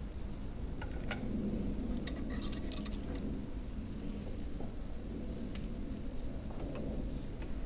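Light metallic clinks and taps as the loading gear of a black-powder muzzle-loading pistol is handled. There are a few single clicks and a quick cluster of clinks about two to three seconds in.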